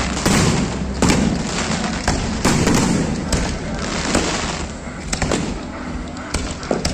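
Fireworks display: aerial shells bursting in a steady series of sharp bangs, about one a second with a couple of quick doubles near the end, over a continuous low rumble.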